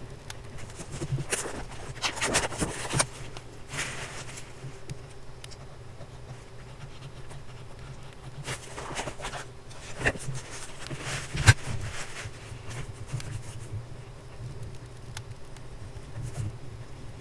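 Fountain pen with a fine black steel nib writing on paper: soft scratching strokes in a few bursts, with one sharp click about two-thirds of the way through, over a faint steady low hum.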